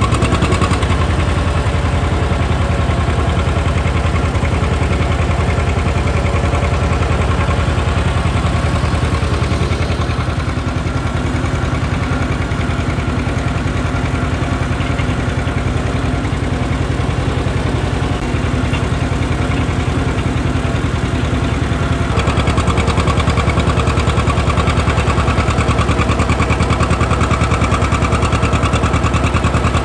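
John Deere 630 two-cylinder tractor engine running steadily as the tractor drives, with a rapid, even exhaust beat. It grows a little louder and fuller about 22 seconds in.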